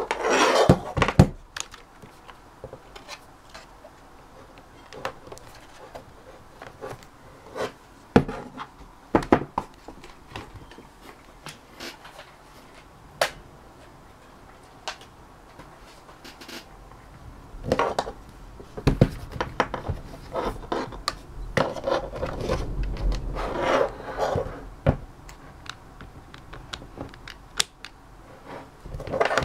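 Handling noise from a phone, a keyboard and its plug-in receiver and adapter: scattered sharp plastic clicks and knocks with a few short spells of rubbing and rustling as they are switched on and connected.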